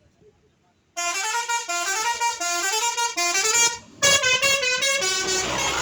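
A bus's telolet horn, a multi-tone musical air horn of the Basuri type, playing a quick melody of stepped notes about a second in. It breaks off for a moment and then plays again with faster notes.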